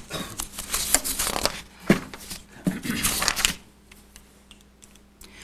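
Irregular rustling and clicking handling noises with a couple of soft knocks, then quiet room tone about three and a half seconds in.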